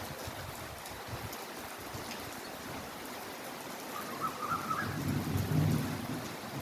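Heavy rain falling steadily, a dense hiss with scattered sharp drop ticks, joined about five seconds in by a louder low rumble.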